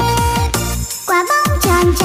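Electronic dance music with a fast, repeating kick-drum beat under held synth notes. The beat drops out briefly about halfway through, then comes back.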